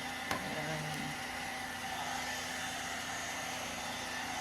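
One-step hair dryer brush running steadily, blowing hot air with a steady motor whine. A single sharp click sounds about a third of a second in.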